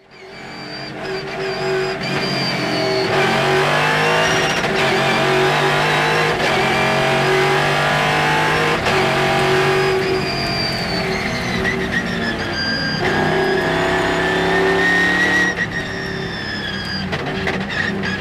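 Morgan Aero 8 race car's V8 engine heard onboard, fading in over the first two seconds and then running hard under racing load. Its pitch climbs and drops with the gear changes, falls steadily around the middle as the car slows, then rises again as it accelerates.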